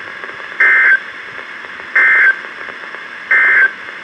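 Emergency Alert System end-of-message data bursts from a NOAA Weather Radio broadcast: three short buzzy digital bursts, each about a third of a second and about 1.3 seconds apart, over a steady radio hiss. The bursts signal the end of the warning message.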